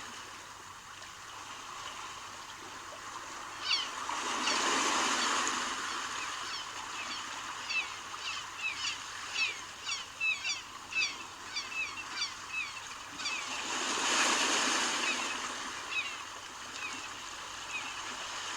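Sea waves washing in over a steady wash of water, swelling twice, about four seconds in and again about fourteen seconds in. Through most of it, a long string of short, high, falling chirps repeats.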